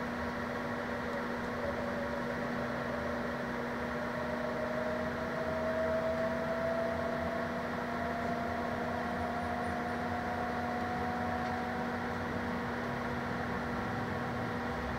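Cabin of a MAN Lion's City hybrid bus under way: a steady hum and road noise, with a whine from the electric drive rising slowly in pitch over about ten seconds as the bus gathers speed.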